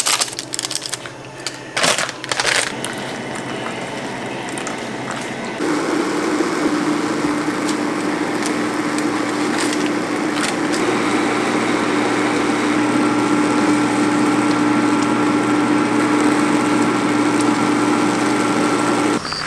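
LAZO automatic ramen machine (a "Han River ramen" cooker) running: a steady hum, with a few crinkles and taps from seasoning packets in the first seconds. About six seconds in it grows louder into a steady drone over a rushing noise as its induction plate heats the water and noodles in the paper bowl, and it cuts off suddenly near the end.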